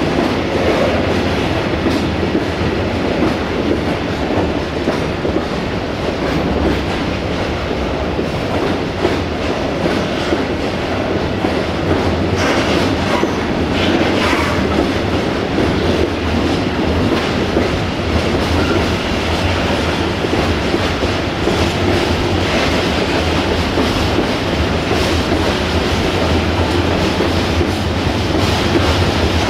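Freight train of tank wagons rolling past steadily, the wheels clicking and rumbling over the rails, with a couple of brief sharper noises about twelve and fourteen seconds in.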